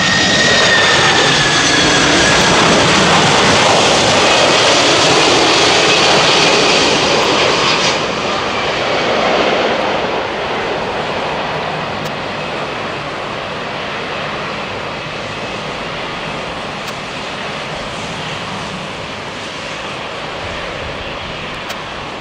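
McDonnell Douglas MD-11 tri-jet's engines passing close on approach: a loud jet whine whose tones fall slowly in pitch. About eight seconds in it drops to a steadier, quieter rumble and hiss as the jet lands and rolls out.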